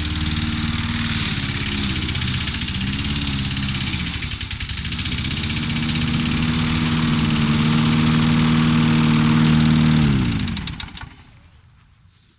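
Small petrol lawn mower engine running, its speed wavering for a few seconds and then holding steady. About ten seconds in, it winds down, its pitch falling as it fades out.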